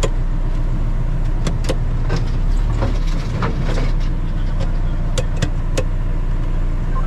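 Off-road 4x4 vehicle running with a steady low engine rumble, broken by a string of sharp knocks and rattles over the first six seconds.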